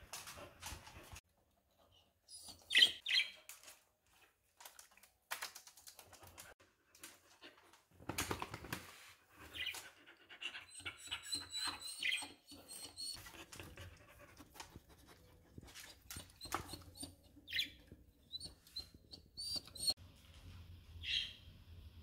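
Budgerigars chirping in short bursts, mostly from about ten seconds in and again near the end, mixed with a beagle's short sounds and scattered clicks.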